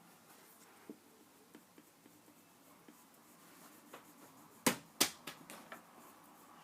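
Faint scattered taps, then two sharp clicks about a third of a second apart a little after the middle, followed by a few lighter clicks.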